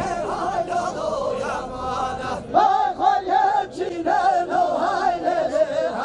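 Men's voices singing a Kurdish folk dance song together in a chant-like line. There is no clear drum beat under the voices.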